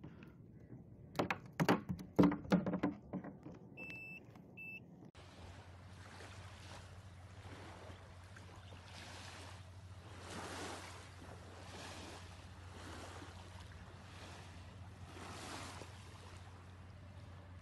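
Hollow knocks and clatter on a plastic fishing kayak's deck for the first few seconds, followed by two short high beeps. Then the sound changes abruptly to a steady low hum with soft swishes of water recurring about every second and a half.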